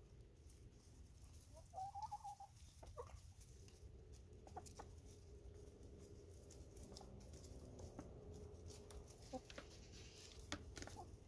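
Faint, soft clucking of hens feeding, with one clearer call about two seconds in and a low murmuring hum through the middle. There are scattered light taps from pecking.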